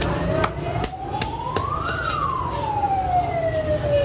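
A siren wailing, rising slowly to a peak about two seconds in and then falling again, over steady low street noise. Several sharp clicks sound in the first two seconds.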